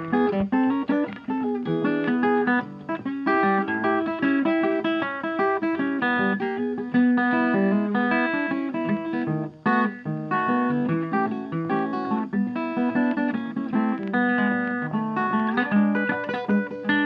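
Background music: a guitar piece of quick plucked notes.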